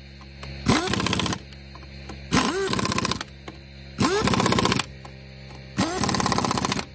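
Kobalt air impact wrench run four times, about a second each, spinning up with a short rising whine and then hammering rapidly as it drives lug nuts back onto a wheel.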